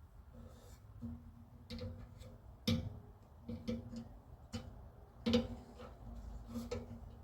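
About ten irregular knocks on the car body's sheet metal, each leaving a short ringing tone, the loudest a little under 3 seconds in and again past 5 seconds. They come from weatherstrip retaining clips being forced into mounting holes that are partly clogged with paint.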